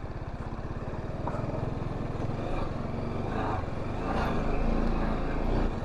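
A TVS Apache RR 310 motorcycle's single-cylinder engine running under way, growing gradually louder and then easing off near the end.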